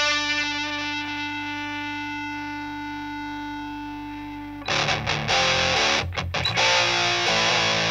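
Electric guitar through a Rullywow Eaglet, a DIY high-gain distortion pedal based on the EarthQuaker Devices Talons. A single held note rings and slowly fades, then about four and a half seconds in loud distorted riffing starts, broken by a couple of short stops.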